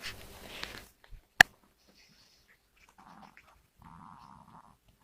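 An animal snoring: two slow snores about three and four seconds in. Before them, a rustle in the first second and a single sharp knock, the loudest sound, about a second and a half in.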